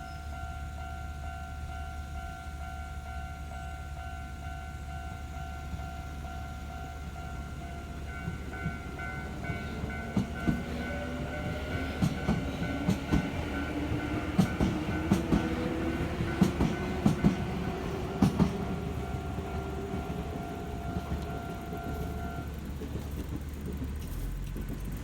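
Japanese level-crossing warning bell ringing steadily as an electric train passes: from about 8 seconds in the train's motor whine rises in pitch as it picks up speed, and its wheels clack over the rail joints for about eight seconds. The crossing bell stops shortly before the end.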